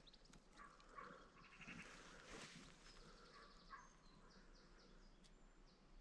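Near silence: faint countryside ambience with a few distant small-bird chirps, most of them in the second half.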